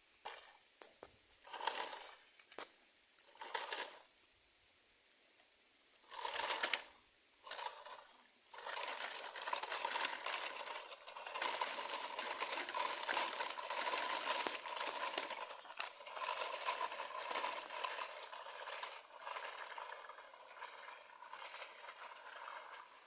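Plastic toy trucks rattling and scraping as they are played with: several short bursts of clatter, then a longer stretch of continuous rattling.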